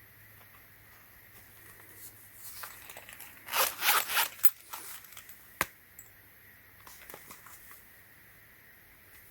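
Hands handling the lock-pick set's packaging: a second or so of rustling and crinkling, loudest about three and a half to four and a half seconds in, then a single sharp click.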